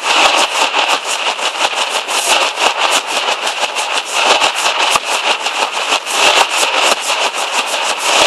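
Nashik dhol troupe drumming: many large barrel drums beaten together in a fast, dense, unbroken rhythm.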